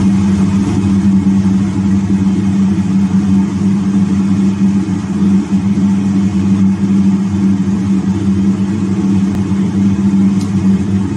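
Steady loud machine hum: a strong low tone over an even hiss, with no change in pitch or rhythm.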